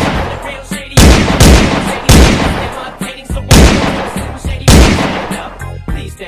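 Gunshots: about five loud, sudden shots at uneven intervals of half a second to a second and a half, each fading out over a moment.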